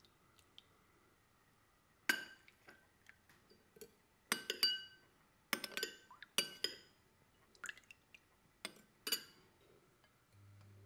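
Spoon stirring sauce in a glass bowl, clinking against the glass in a run of irregular taps, each ringing briefly.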